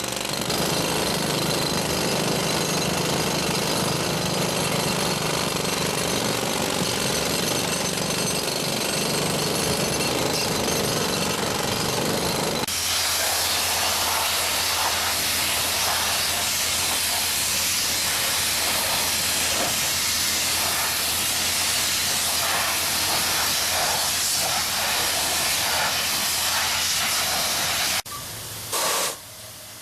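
Pneumatic jackhammer breaking out concrete on a bridge deck, running continuously. About halfway through, the sound changes abruptly to a loud hiss with a rapid chatter over a steady low hum, which then cuts to something much quieter shortly before the end.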